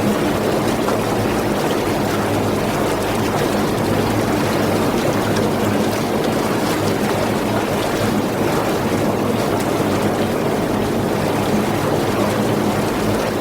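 Jacuzzi jets churning the water: a steady, loud rush of bubbling with a low, even hum underneath.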